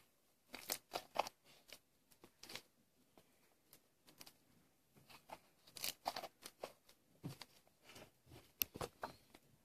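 Freshly made slime worked by hand, giving scattered soft clicks, crackles and small pops at an irregular pace.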